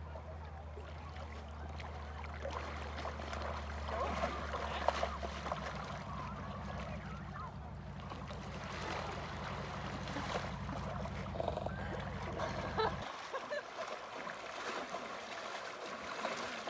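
Lake water splashing and sloshing as a horse and a person wade through it. Under the splashing a steady low hum runs until it stops suddenly about thirteen seconds in.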